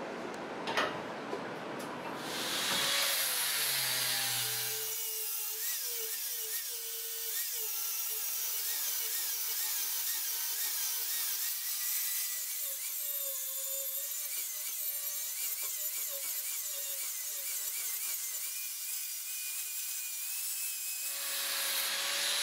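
An angle grinder grinding the edge of a small steel plate, its whine wavering up and down as the disc bites and eases off. It follows about two seconds of a drill press cutting through the plate, with one sharp click.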